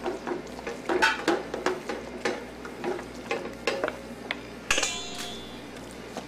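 A wooden spoon stirring and scraping caramelized onions in an aluminium sauté pan, with irregular knocks of the spoon against the pan. About three-quarters through there is a louder metallic scrape with a brief ring as the pan is tipped against a steel bowl.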